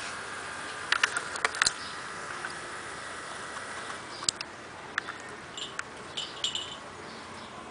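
Electromechanical swing-gate operator arm running with a thin steady whine and several sharp clicks in the first couple of seconds, then fading. Scattered ticks and a few short high chirps follow.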